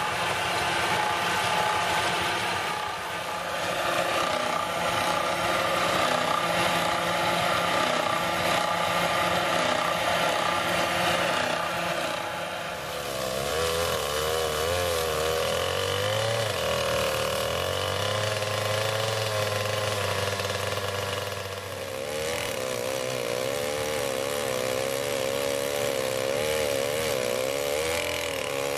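An old belt-driven saw bench runs, its circular blade cutting timber. About 13 seconds in the sound changes to a two-man chainsaw sawing through a large log, its engine note wavering under load, with a short dip about 22 seconds in.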